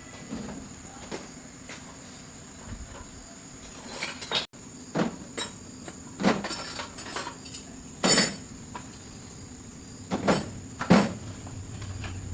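A series of sharp knocks and clanks, about six of them from a third of the way in, the loudest two thirds of the way through and near the end, over a steady high chirring like insects.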